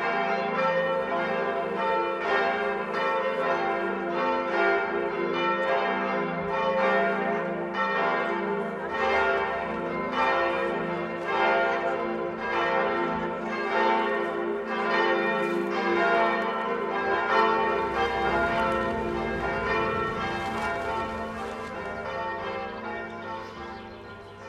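Church bells ringing a peal, strike after strike in a quick even rhythm with the tones ringing on into each other; the ringing fades toward the end.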